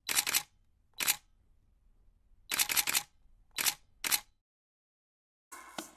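Camera shutter clicks, in about five short bursts over the first four seconds or so, with silence between them.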